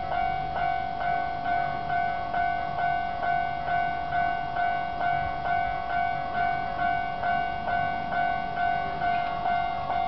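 Tokyu Setagaya Line level-crossing warning bell ringing, an even ding repeating about two and a half times a second. This is the crossing's older-style alarm sound.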